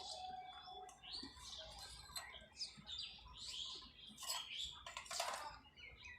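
Baked clay pottery being bitten and chewed close to the microphone: irregular crunching crackles and small snaps.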